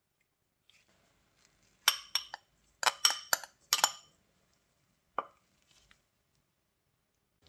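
A metal spoon clinking against bowls as almond flour is scraped out into a stainless steel mixing bowl: about six sharp, ringing clinks in quick groups, then one softer tap a second later.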